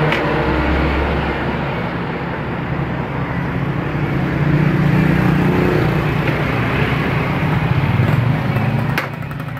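Motor scooter engine running, revved up twice so that it swells in loudness, with a sharp click near the end.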